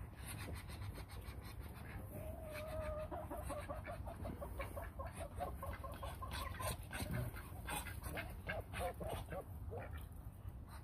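Backyard poultry calling: a quick run of short repeated calls starts about two seconds in, then looser, scattered calls follow.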